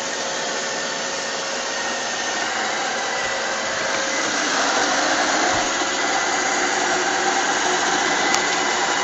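iRobot Roomba robot vacuum running: a steady whirring hiss from its brushes and suction fan with a faint steady whine, growing a little louder about halfway through as it comes closer.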